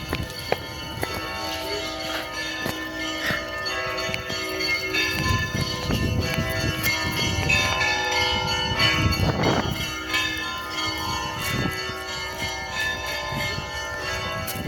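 Church bells ringing, several bells struck over and over so that their tones overlap and hang on.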